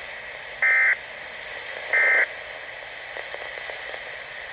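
Two short bursts of EAS/SAME digital data tones, the end-of-message signal closing a Weatheradio Canada alert, about a second and a third apart, over steady radio hiss.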